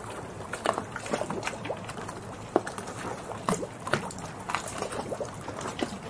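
Small harbour waves lapping, with many short, irregular splashes and plops over a steady wash of water.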